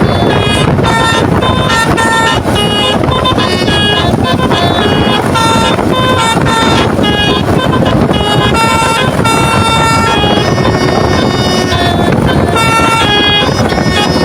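Basuri 'telolet' musical air horn on a truck playing a rapid, changing melody of short tooting notes, over heavy wind and road noise.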